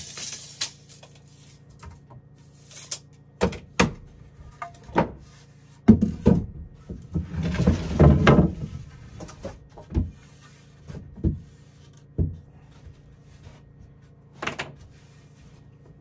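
Irregular wooden knocks and thuds from carpentry work, about a dozen, with a longer noisy stretch of handling lasting a few seconds near the middle.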